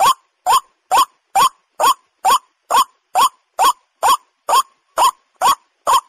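White-breasted waterhen calling: a short, rising note repeated steadily, about two calls a second.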